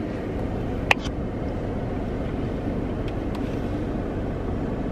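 Steady low rumble, like a vehicle's engine heard from inside, with one sharp click about a second in.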